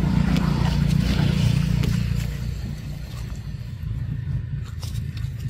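A motor vehicle engine running nearby, a low steady hum that is loudest for the first two seconds and then fades, with a few faint clicks late on.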